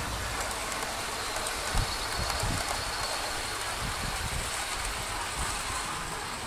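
OO gauge model train running past on its track: a steady rolling hiss of wheels on rail with a faint high whine.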